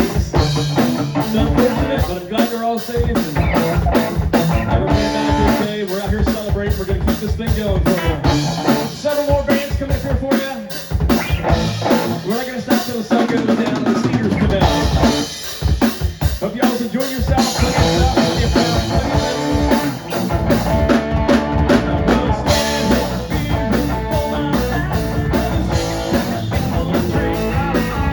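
Rock band playing an instrumental passage, with the drum kit (bass drum and snare) keeping a steady beat under the other instruments.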